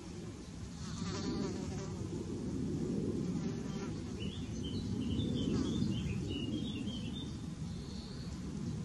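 An insect buzzing past a couple of times, its pitch rising and falling, over a steady low outdoor rumble, with faint high chirps in the middle.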